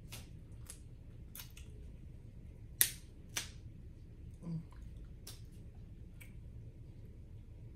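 Boiled shellfish shells snapping and cracking as they are broken open by hand: a string of sharp, brief cracks, the loudest about three seconds in.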